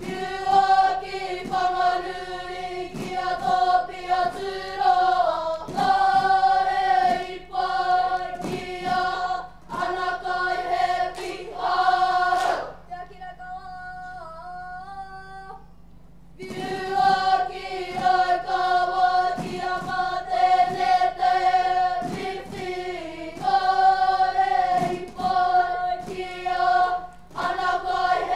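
Children's kapa haka group singing a waiata poi in unison, punctuated by frequent sharp taps of the poi striking hands. About halfway through the group drops out and a single voice carries a quieter passage for a few seconds before the full group comes back in.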